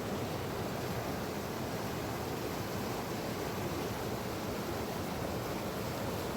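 Fast river water rushing steadily.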